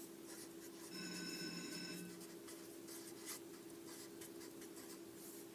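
Felt-tip marker writing on paper: faint scratchy strokes as words are written out. About a second in, a faint steady tone sounds for about a second over a low steady hum.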